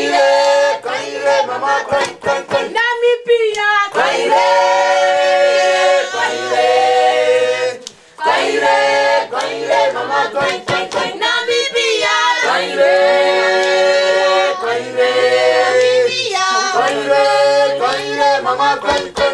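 A mixed group of men and women singing together without instruments in repeated phrases, with brief breaks between them.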